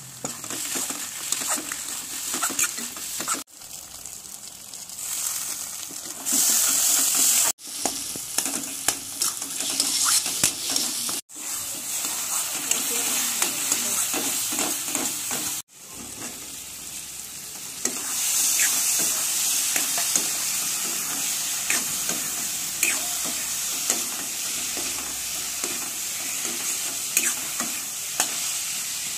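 Onion and spice masala with potato pieces frying and sizzling in oil in a kadai, while a spatula stirs and scrapes against the pan. The sizzle breaks off abruptly a few times and grows louder after the breaks.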